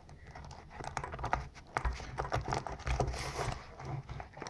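Fingers fumbling at the zipper of a fabric pencil case: irregular scratches, taps and rustles of fabric and zipper teeth, with dull bumps of the case being handled. A short hissy rasp about three seconds in is the zipper pull sliding.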